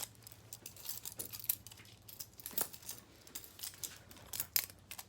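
Butterfly knife being opened and closed by hand: an irregular run of sharp metallic clicks and clacks as the handles swing and knock together, the loudest about four and a half seconds in.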